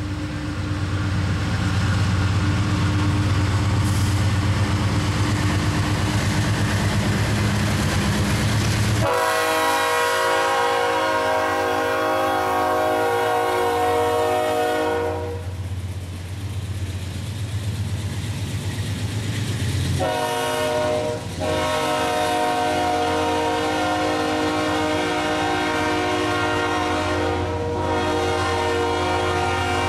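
CSX freight train passing close by. Its diesel locomotive rumbles heavily as it comes up, then its air horn sounds two long blasts, one starting about nine seconds in and lasting some six seconds, the other starting about twenty seconds in and running on. Under the horn, the freight cars roll past with a steady clatter of wheels on rail.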